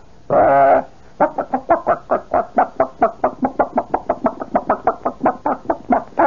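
A man's vocal imitation of a chicken: one short drawn-out call, then a steady run of short clucks, about four a second. It is meant as a chicken walking around the yard pecking at gravel.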